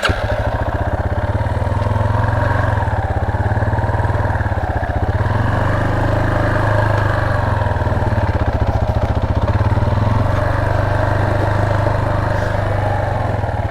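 Motorcycle engine running at low revs, a fast even pulse whose pitch gently rises and falls a few times as the throttle is eased on and off.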